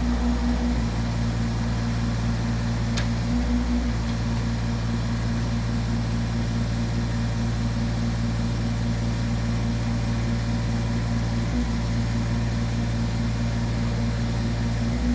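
Small diesel engine of a JCB 8008 micro excavator running steadily with a low, even drone and only slight shifts in tone.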